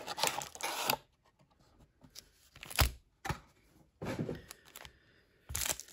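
Cardboard box and trading cards being handled: short papery rustles and scrapes, with two sharp taps a little after the middle.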